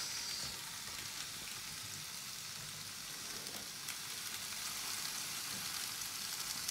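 Oiled, seasoned potatoes sizzling steadily in a closed panini grill.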